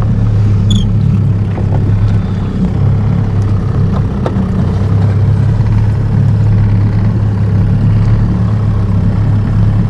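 A motor running steadily with a low, even hum, with a few faint clicks over it.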